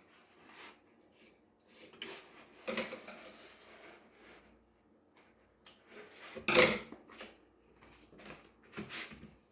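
Scattered rubbing and clicking handling noises, with one louder sharp knock about six and a half seconds in.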